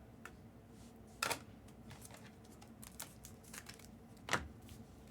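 Faint scattered clicks and taps of trading cards being handled and set down, with two sharper taps, one about a second in and one near the end.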